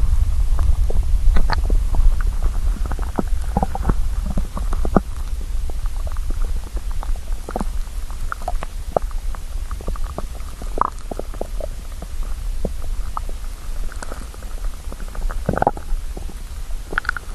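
Hungry stomach growling and gurgling. A steady deep rumble, louder in the first few seconds, runs under many short pops and squeaks.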